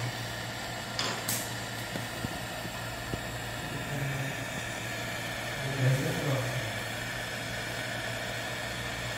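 Jeweler's gas hand torch burning with a steady hiss while its flame heats a small piece on a soldering block. There is one sharp click about a second in.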